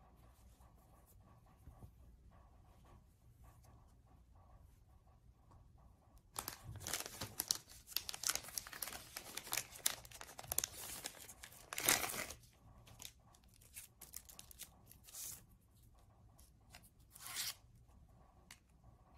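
Frosted plastic sleeve crinkling as hands pull it open and slide the glasses out: a dense crackle for about six seconds, loudest near its end, then a couple of short rustles. Before it, only faint handling noise.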